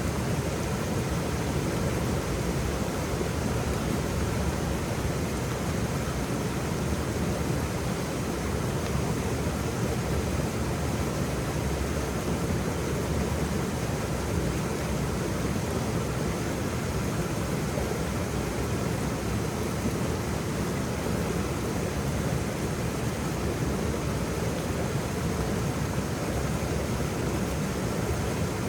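Waterfall, a steady, unchanging rush of falling water.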